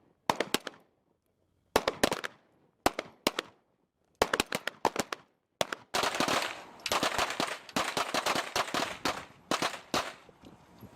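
Pistol fire in quick strings of a few shots each, with short pauses between them; from about six seconds in the shots come thicker and overlap, with short echoes after each crack.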